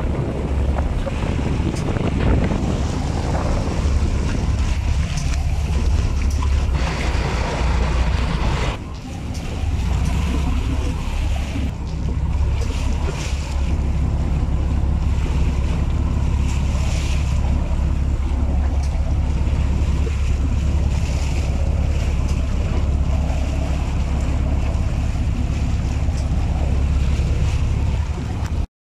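Wind buffeting the microphone over the wash of the sea, with a steady low rumble throughout.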